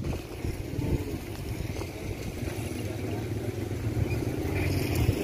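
A small engine running steadily at low revs, its hum growing slowly louder, with faint voices in the background.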